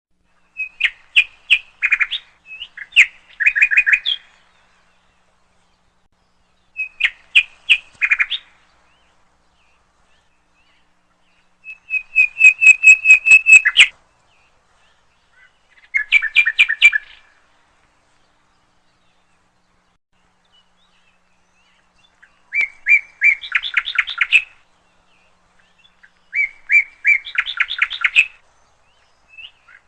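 A songbird singing short phrases of rapid repeated chirping notes, about seven phrases with pauses of a few seconds between them, against a silent background.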